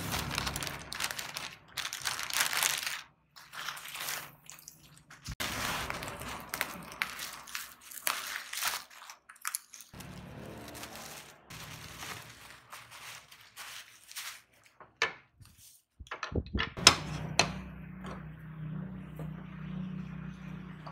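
Plastic courier bags and bubble wrap crinkling and rustling as they are handled and cut open with scissors. Near the end, flat wooden stand pieces knock on a wooden desk with a few sharp clacks.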